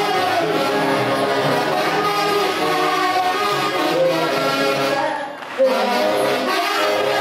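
Huaylarsh dance music from the Peruvian central highlands, played by a band led by brass and saxophones. The band breaks off briefly about five seconds in and comes back with a loud accent.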